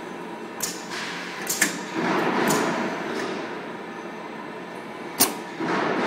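Aluminium corner crimping machine (LZJ-120E) at work: a few sharp metallic clicks and knocks as the frame corner and clamps are set. A rushing noise swells and fades about two seconds in and again near the end.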